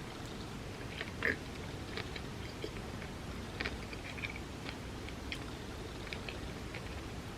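A person chewing food close to the microphone, with scattered soft, wet mouth clicks and crackles.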